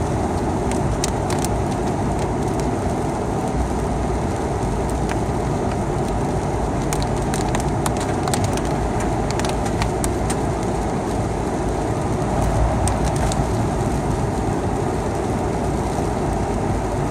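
Steady rumble of a vehicle driving on a wet road in the rain, with scattered sharp ticks of raindrops striking.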